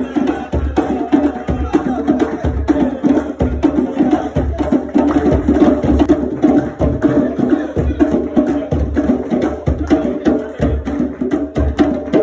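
A live band of hand drums played in a fast, driving rhythm, with many sharp, dry strokes over sustained pitched tones.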